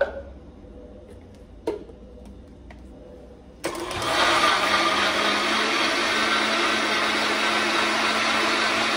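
Oster countertop blender switched on by its knob and running at a steady speed, blending warm milk, eggs and fresh yeast into a bread-dough liquid. A single sharp knock comes a few seconds before it starts.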